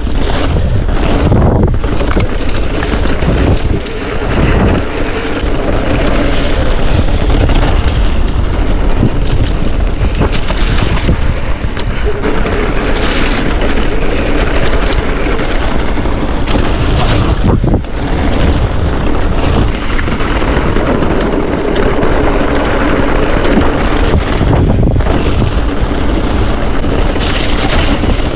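Wind buffeting the microphone of a camera on a mountain bike ride, loud and continuous, over tyre and trail noise with frequent short knocks and rattles.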